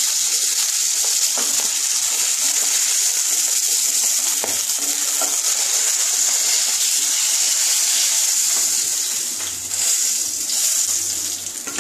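Hot mustard oil sizzling steadily in a non-stick frying pan as fried rohu fish pieces are lifted out, with a few faint knocks of a wooden spatula against the pan.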